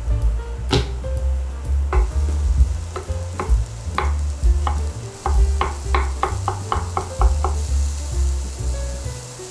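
Food being stirred in a hot frying pan: a utensil taps and scrapes against the pan over a sizzle. A fast run of taps, about six a second, comes a little past the middle, over a low rumble.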